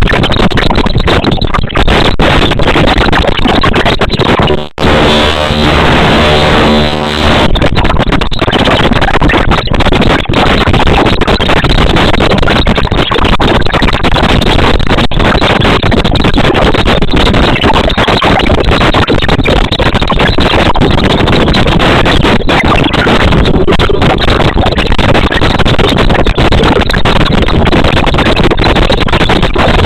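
Loud, dense music that holds steady throughout, dipping briefly about five seconds in.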